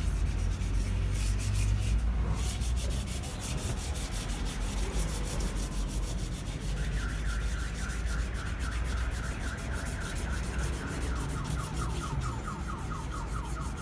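Sandpaper rubbing back and forth by hand over the painted surface of an aluminum wheel rim, kept wet with water: steady, quick scrubbing strokes.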